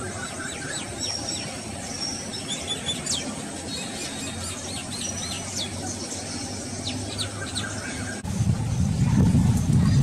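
Birds chirping and calling: many short, high, squeaky notes and brief whistles over a steady outdoor hiss. About eight seconds in, the sound cuts to a louder low rumble.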